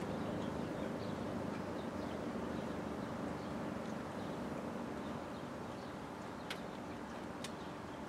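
Low steady tone of a Federal Signal STH-10A outdoor warning siren, fading slowly as it winds down, with small bird chirps and two sharp clicks near the end.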